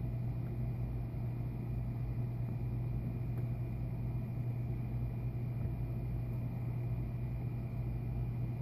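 Steady low mechanical hum, like an idling engine or motor, unchanging throughout.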